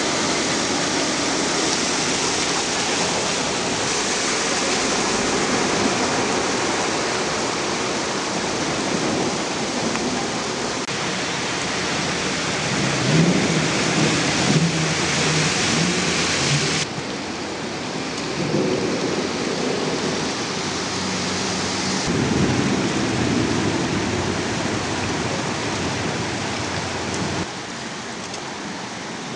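Heavy rain pouring onto a flooded street: a steady rushing hiss of rain and running water, with low rumbling in the middle stretch. The sound changes abruptly a few times.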